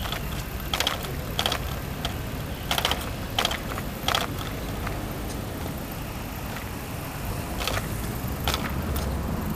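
Bike-share bicycle rattling and clicking as it rolls along a paved path: sharp clicks in short runs about 0.7 s apart, over a steady low rumble.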